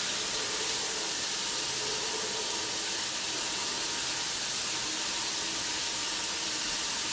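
Shower running in a glass-walled stall: a steady, even hiss of water spray.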